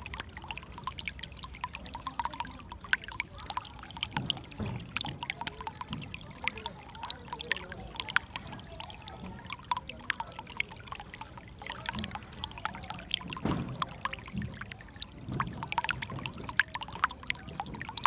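Shallow water running and splashing over rocks close to the microphone: a steady, dense run of small splashes and gurgles.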